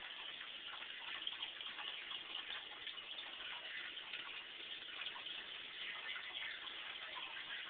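Aquarium water trickling and bubbling steadily, a faint patter of many small ticks and splashes.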